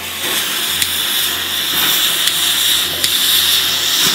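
Red smoke flares being lit one after another, spitting sparks with a steady loud hiss and a few sharp crackles.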